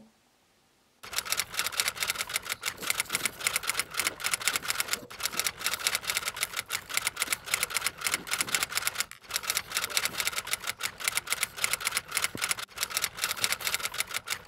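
Typewriter typing sound effect. Rapid key clacks, several a second, start about a second in and keep up with a few brief pauses, matched to on-screen text being typed out letter by letter.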